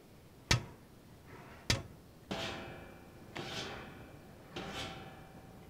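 Demonstration of dishes rattling inside a running dishwasher: two sharp, dry knocks of wooden or plastic items, then, from about two seconds in, three metallic clanks that ring and fade. Thin metal, wood or plastic tableware makes this normal sound; it is not a sign of a faulty machine.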